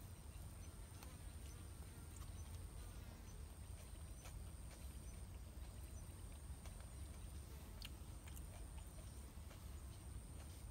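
Quiet sounds of people eating fried fish by hand off plates: faint scattered clicks and smacks, over a steady low rumble and a thin, steady high-pitched tone.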